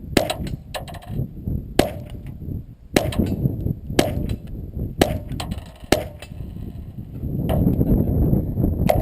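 .22LR rifle shots: about seven sharp cracks, spaced roughly a second apart through the middle of the stretch, with another near the end.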